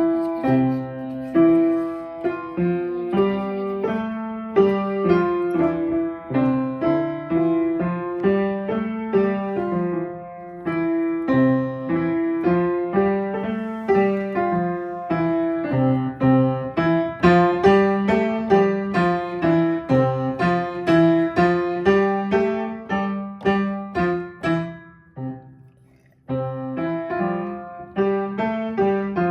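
A beginner playing the piano loudly and fast with both hands together, going over a short phrase again and again. About 25 seconds in the playing dies away, then starts again a second later.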